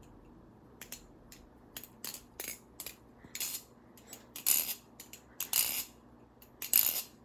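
Balisong (butterfly knife) with mokume handles and Damascus barrels being flipped: the metal handles swing and clack against each other and the blade in a run of irregular sharp metallic clicks, louder and fuller from about three seconds in.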